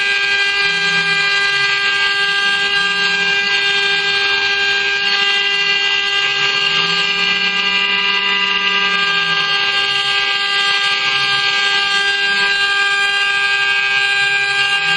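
CNC router's high-speed spindle running with a steady whine, its cutter milling a relief into a copper plate with a continuous cutting hiss.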